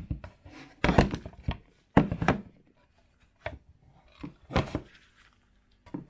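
Metal bread-machine pan, upside down, knocked against a wooden cutting board in a series of thuds to free the baked loaf, the hardest knocks about one and two seconds in and lighter ones after.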